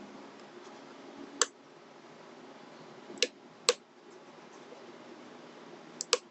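Sharp clicks of a lock pick working the pins of a Goal S five-pin tumbler lock: one click about a second and a half in, two more about half a second apart past the three-second mark, and a quick double click near the end.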